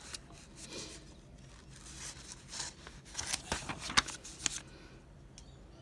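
Bible pages being flipped and turned by hand: soft paper rustling with a few short, crisp flicks about halfway through.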